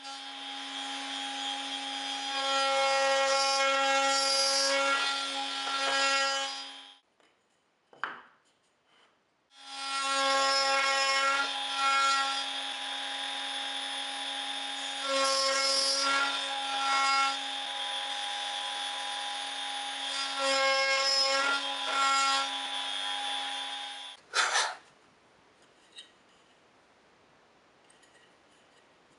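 Trim router mounted in a router table, running with a steady whine while a spline jig carries a box corner across the bit to cut a spline slot. The noise swells during each pass through the wood. It runs for about seven seconds, stops, then runs again for about fifteen seconds, and a brief sharp knock comes just after it stops the second time.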